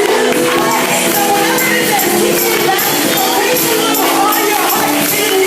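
Live worship band music: held chords under bending voices, with a tambourine jingling on the beat.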